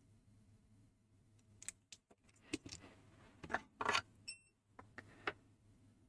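Small sharp metallic clicks and scrapes of tweezers and a soldering iron on a circuit board while a surface-mount transistor is desoldered, the loudest cluster around three and a half to four seconds in. A brief high electronic beep sounds just after four seconds.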